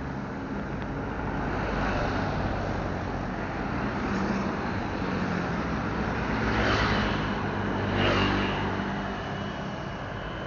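Road traffic heard from a moving bicycle: motor vehicle engines running steadily, with two vehicles passing close, one after the other, about six and a half and eight seconds in.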